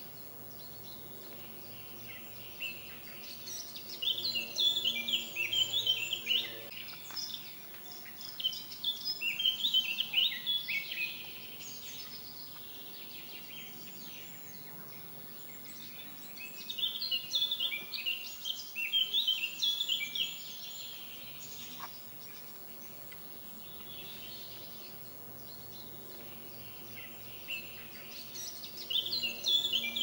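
A songbird singing in phrases of rapid, high chirping notes, each a few seconds long, four times with quieter gaps between, over a faint steady low hum.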